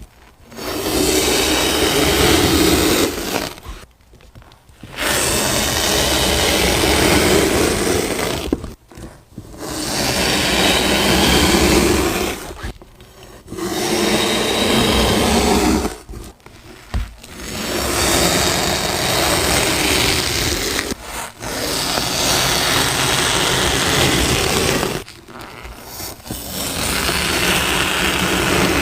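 Kinetic sand being sliced with a blade: a gritty, crunching scrape, repeated as about seven cuts of roughly three seconds each with short pauses between them.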